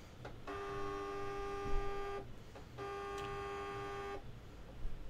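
Silhouette Cameo cutting machine's stepper motors whining steadily as the tool carriage is jogged sideways with the arrow buttons, in two runs of about a second and a half each with a short pause between.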